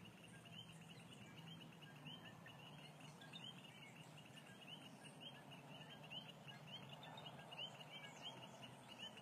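Near silence: faint outdoor ambience with a steady run of short, rising chirps, several a second, from a small animal, over a faint low hum.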